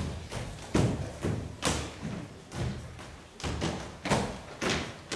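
Dancers' feet stamping on a stage floor during a folk circle dance (kolo): about two heavy thuds a second in an uneven rhythm, with no music.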